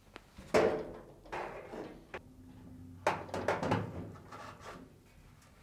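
Sheet-metal dryer drum being set into the cabinet onto its rear rollers: a small click, then a series of scrapes and knocks, the sharpest about three seconds in.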